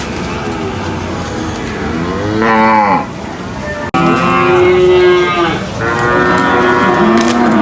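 Cattle mooing: several loud, drawn-out calls one after another, each rising and falling in pitch, with a sudden brief break in the sound between the first and second.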